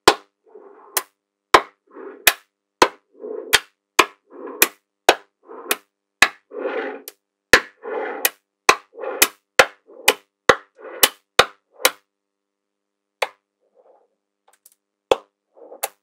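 Small magnetic balls clicking sharply together as pieces are snapped onto the maze walls, about two clicks a second, many with a softer rattle of balls just before. The clicking stops for a few seconds near the end, then starts again.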